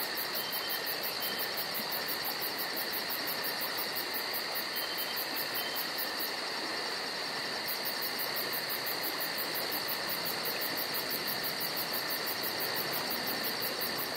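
A dense, steady chorus of high insect-like chirring, with a fast, even pulse in its highest part that drops out briefly around the middle.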